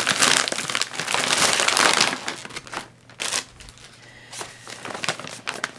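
Plastic packaging crinkling as a bag of wrapped dog toys is handled and opened: loud and continuous for the first two seconds or so, then softer, scattered crackles.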